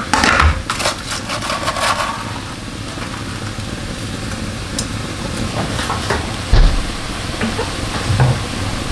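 Egg, shrimp and mushrooms sizzling steadily in a hot ceramic-coated wok. There are a few light clicks in the first couple of seconds and a low bump or two near the end.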